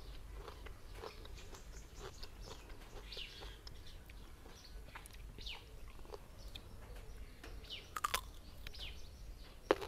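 Close chewing of crisp raw green mango, with a sharp crunchy bite into a fresh slice about eight seconds in.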